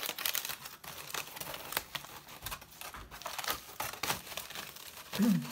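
Aluminium foil crinkling in irregular crackles as it is handled and unfolded by hand.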